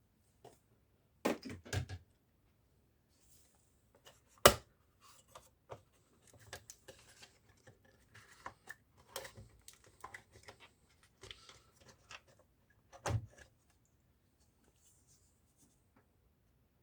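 Hands working on a laptop's plastic and metal parts: scattered clicks and knocks, with a sharp click about four and a half seconds in and a pair of knocks near the start and another near the end, and soft scraping and rustling of parts being moved between them.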